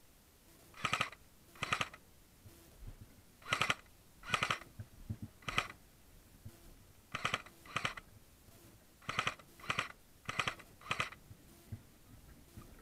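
Footsteps crunching through dry grass and undergrowth: about a dozen short, crackly crunches at an uneven walking pace.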